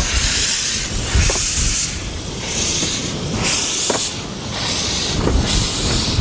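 Replica of Förstlingen, Sweden's first steam locomotive, puffing as it moves slowly off with a carriage: bursts of steam hiss come about once a second over the low rumble and clatter of wheels on the rails.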